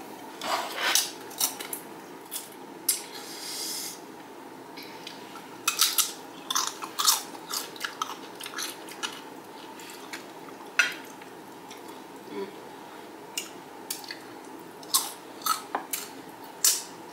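Crunching and chewing of XXtra Flamin Hot Doritos tortilla chips: irregular sharp crunches, bunched in clusters, with quieter chewing between.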